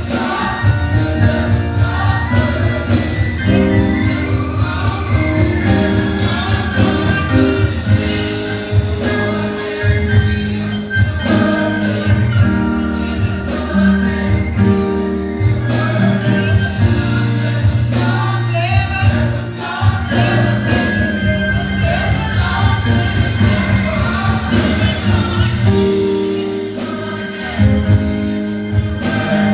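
Gospel music: voices singing together over instruments with a steady bass.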